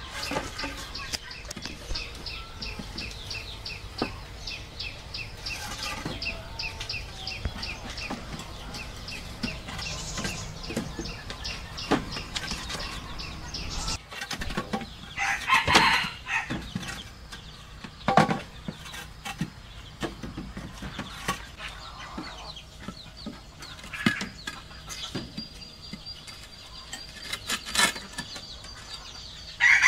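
Chickens clucking, with a louder call about halfway through, over scattered knocks of bamboo poles being handled and set upright.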